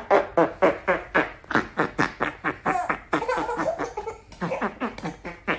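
A baby's rapid, rhythmic run of short voiced sounds made with pursed lips, about four or five a second, like a laughing chatter.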